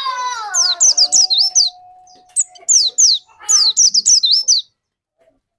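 White-eye (pleci) singing in quick bursts of high, sharply falling notes, the rapid 'tembakan' volley. The song stops about three-quarters of the way through. Over the first half a lower, drawn-out tone slides down and then holds steady.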